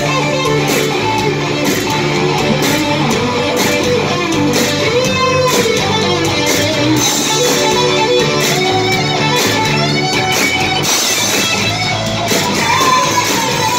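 Rock band playing live and loud, with an electric guitar lead over bass and drums in an instrumental passage. The lead's notes bend and waver.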